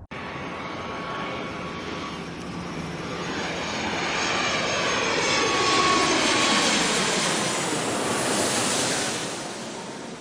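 Jet airliner flying past. Its engine noise builds to a peak about six seconds in, then fades, with a shifting swish and a steady whine as it goes by.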